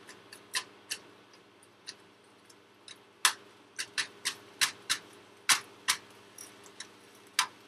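A frying pan of softening onions on the stove giving sparse, irregular sharp clicks and ticks, about a dozen, over a faint steady hum.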